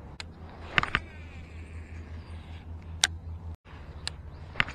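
Sharp clicks and knocks from a baitcasting rod and reel being worked while casting and retrieving a topwater frog, over a steady low rumble.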